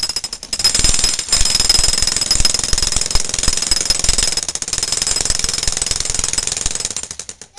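Jackhammer breaking up a concrete sidewalk: fast, steady hammering with a high whine above it, stopping shortly before the end.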